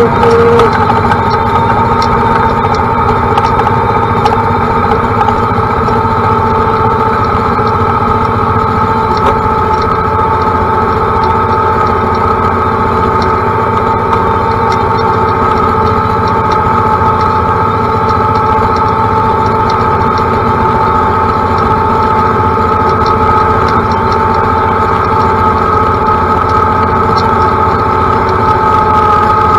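John Deere compact utility tractor's diesel engine running steadily while it drives through tall grass, with a steady high whine over the engine note.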